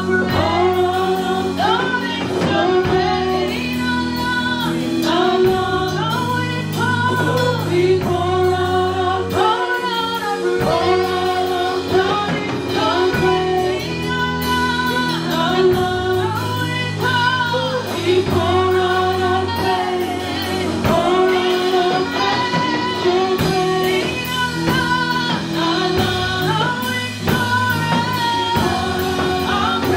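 Church worship team singing a gospel praise song into microphones, voices amplified over instrumental accompaniment with a steady beat.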